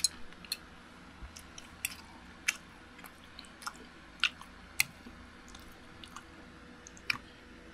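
A person eating a bowl of chicken soup at close range: chewing and wet mouth sounds, with a metal spoon clinking against the bowl in sharp ticks every second or so.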